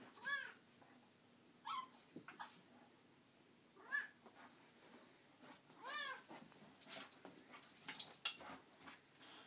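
Two dogs at play: four short, high-pitched squeaks a second or two apart, then a few sharp scuffling clicks near the end.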